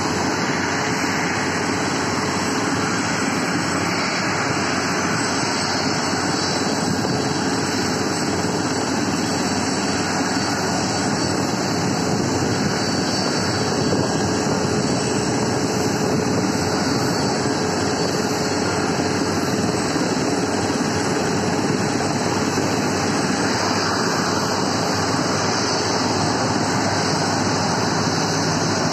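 Steady, even roar of airliner jet engines across an airport apron, with a faint steady hum under it and no break or change throughout.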